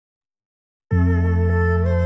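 Silence, then background music starts about a second in: a melody line over a steady, sustained low drone.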